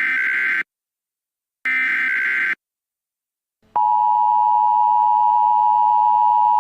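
Simulated Emergency Alert System tones: two short buzzy data bursts of the digital SAME header, about two seconds apart. A little past halfway, after a silent pause, the steady two-tone EAS attention signal sounds. The uploader notes that the tones encode no valid alert.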